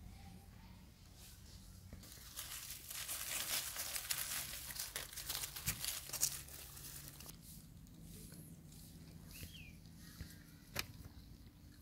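Dry fallen leaves crackling and rustling for about five seconds, starting some two seconds in, as they are moved through or handled. A single sharp click comes near the end.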